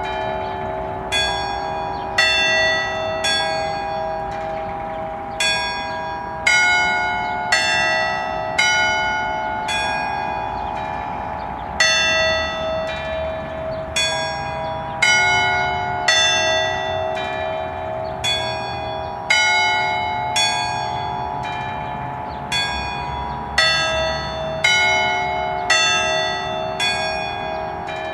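A Capanni-cast concerto of nine church bells in A (eight bells plus a semitone bell) playing an Allegrezza Bolognese, a festive tune of single strokes passed from bell to bell. The strokes come about once or twice a second in uneven groups, and the long hum of the bells carries on between them.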